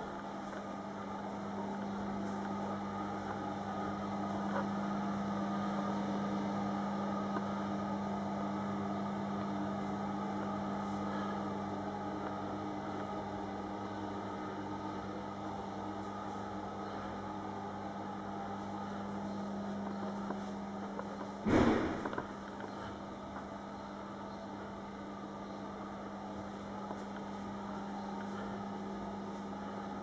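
A steady low electrical hum with a faint hiss, broken once about two-thirds of the way through by a short, loud bump.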